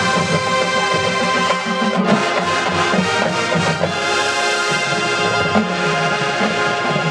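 Marching band music led by brass, with a fresh full-band entrance about two seconds in.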